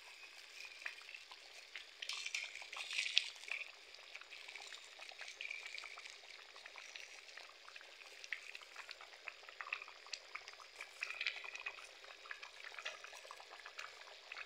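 Pot of beans cooking in red palm oil, bubbling and sizzling faintly with a steady crackle of small pops, a little louder about two seconds in.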